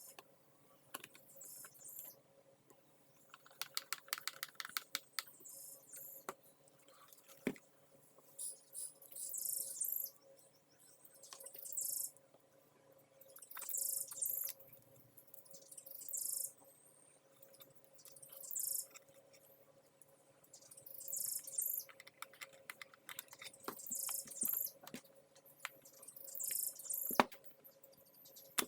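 Plastic vacuum parts being handled and fitted back together: short scratchy rustles about every two seconds, mixed with light clicks and taps.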